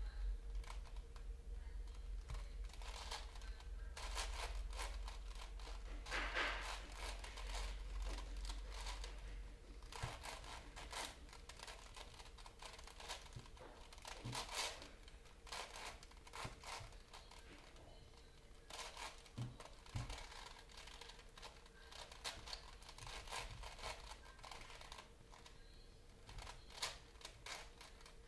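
Crinkling and crumpling of something held and worked in the hands, in irregular bursts of small crackles, over a faint steady hum.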